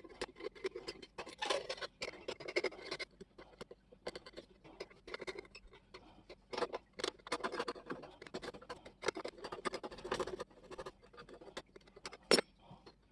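Irregular scratching and scraping from hand work on a workpiece, broken by small clicks and knocks, with one sharp knock near the end.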